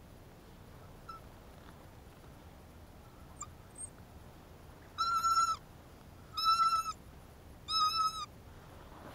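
A bird calling three times, each a drawn-out call of about half a second on a steady pitch, spaced about a second and a half apart, after a couple of faint short chirps.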